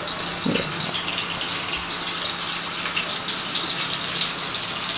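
Snakehead fish pieces sizzling steadily in hot mustard oil in a frying pan, with light crackling, as they are shallow-fried.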